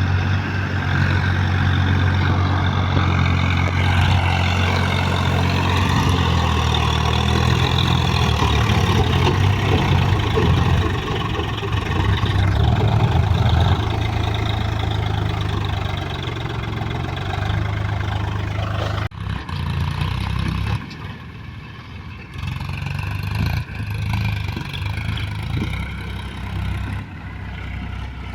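Heavy diesel engines of tractors and a backhoe loader running under steady load, with a deep drone. About two-thirds of the way through the sound drops off suddenly and goes on quieter and more uneven.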